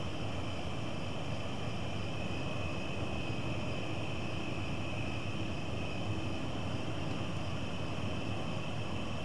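Summer dusk ambience: a steady insect chorus of crickets or katydids, with a constant low rumble underneath.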